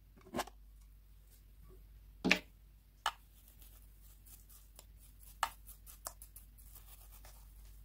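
A few sharp clicks and knocks of utensils and containers being handled, the loudest about two seconds in, then a metal spoon scooping through dry chunky glitter flakes with a light rustle of small ticks.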